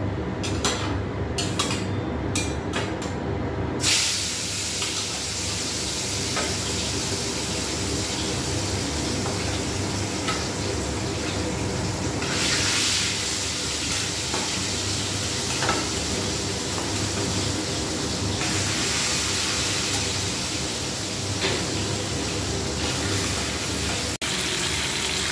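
Turmeric-coated bhangon fish pieces frying in hot oil in a steel kadai. A few clinks of a metal spatula on steel come first; then, about four seconds in, a steady sizzle starts suddenly. The sizzle swells louder around the middle and again later as more pieces go into the oil.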